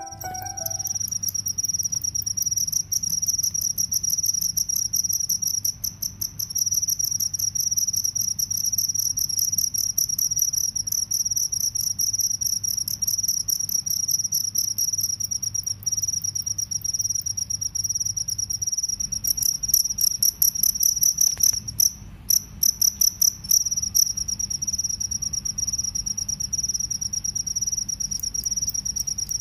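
Male field crickets chirping: a steady, high, rapidly pulsed trill. About two-thirds of the way through it breaks for a few seconds into separate, louder chirps with short gaps between them.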